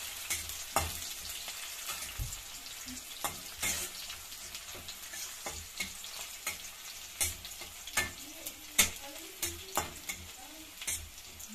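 Sliced onions sizzling as they fry in oil in a stainless steel wok, browning towards golden. A spatula stirs them, scraping and knocking against the pan at irregular intervals.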